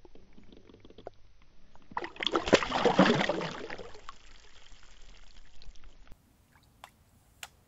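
A released bass splashing into the water: a loud burst of splashing about two seconds in that fades away over a couple of seconds. Near the end the sound cuts to near quiet with a couple of faint clicks.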